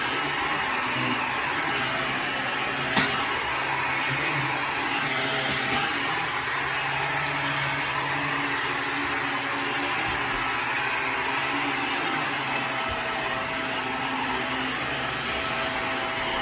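Hoover React Powered Reach Premier Pet vacuum cleaner running steadily as it is pushed over carpet, with one sharp click about three seconds in.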